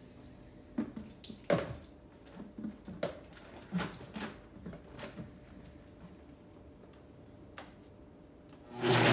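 A few light clicks and knocks as the blender's lid and tamper are handled. Near the end a countertop blender switches on with a loud whir, churning ice cubes and ice cream.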